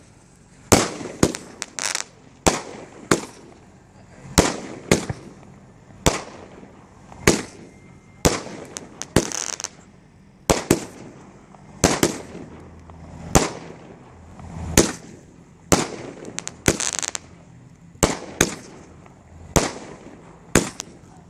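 A 16-shot, 500-gram consumer firework cake firing in sequence: a steady run of sharp launch thumps, each soon followed by the bang of its aerial break, roughly one to two reports a second. Twice a burst ends in a hissing crackle from the crackling brocade effects.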